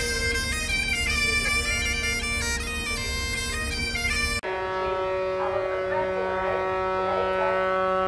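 Bagpipes of a pipe band playing a tune over steady drones. About four and a half seconds in the sound cuts abruptly to another passage of piping, still over held drones.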